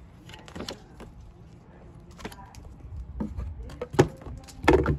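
Hands handling an unboxed throttle body and its packaging: scattered knocks, clicks and rustles, with a sharp knock about four seconds in and a louder cluster of knocks near the end.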